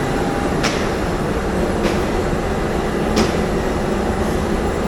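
Steady mechanical din of machinery in a fabric dyeing plant, with three light clicks over it.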